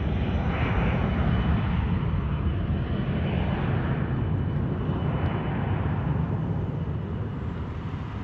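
Small business jet taking off: a steady jet engine roar with a deep rumble, fading slowly as the jet moves away.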